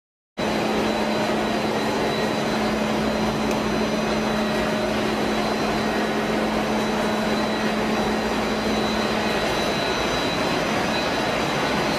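Combined rice mill running: a steady mechanical whir of motors and blowers with a constant low hum and a faint high whine, starting abruptly just after the beginning.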